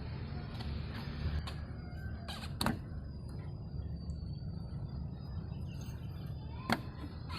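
Daihatsu Gran Max blind van running with a steady low rumble, with a few sharp knocks, the loudest about two and a half seconds in and near the end.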